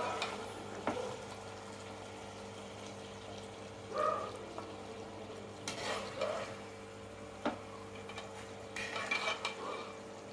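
A metal slotted spoon scraping in an aluminium cooking pot and clinking as a thick vegetable curry is served onto a ceramic plate: a few scattered scrapes and two sharp clinks, over a steady faint hum.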